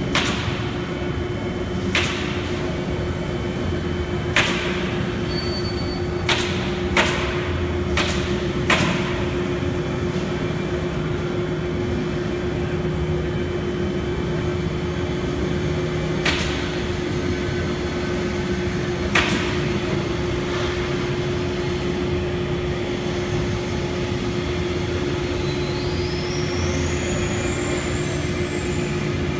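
CNC router machinery running with a steady hum and a single held tone, with sharp knocks scattered through the first twenty seconds. Near the end a high whine rises in pitch.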